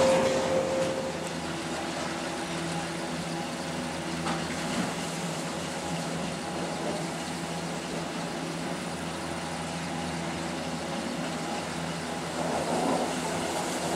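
Six-seat detachable gondola lift running: a steady mechanical hum from the drive and the cable over its sheaves, swelling briefly near the end.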